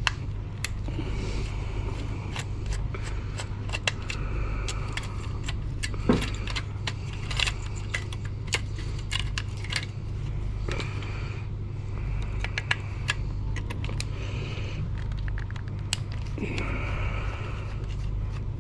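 Screwdriver working old screws loose from a vintage PC's metal case and parts: many small metallic clicks, taps and scrapes, over a steady low hum.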